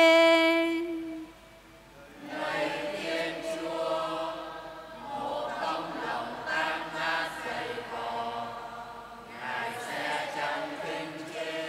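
A woman's sung note held and ending about a second in; after a short gap, a congregation sings the responsorial psalm refrain together, a chanted melody of many voices that is quieter than the solo voice.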